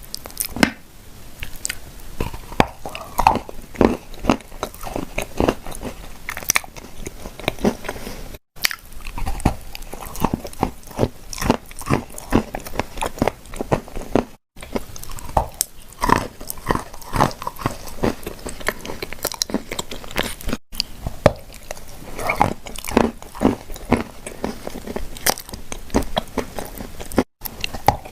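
Someone biting and chewing dry clay shortbread cookies: a steady run of sharp, irregular crunches and crumbling chews. The sound is broken by four very brief dropouts where the recording is cut.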